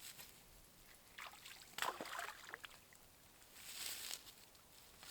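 Water splashing and sloshing in shallow water at the shore, in two short bouts, the first about a second in and the second near four seconds.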